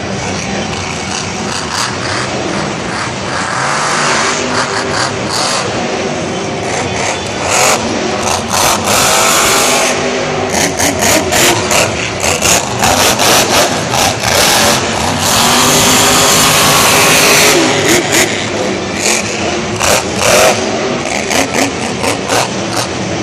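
Monster truck's supercharged V8 engine revving hard in repeated bursts as it drives the dirt course, loudest in the middle stretch.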